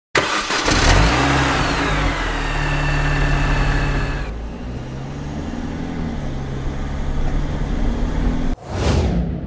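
Cartoon car engine sound effect: it starts suddenly, revs up and back down in pitch, then runs on steadily. A brief swish comes near the end.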